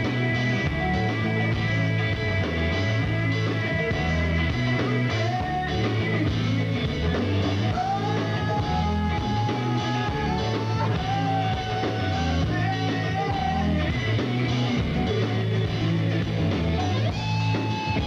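Live rock band playing: electric guitar over bass and drums, loud and steady, with a repeating bass pattern.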